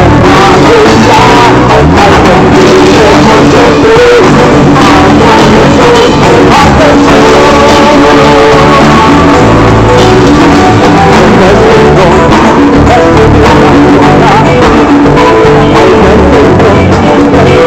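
Live band playing loud amplified music with a singer, drums and guitar through a PA during a sound check.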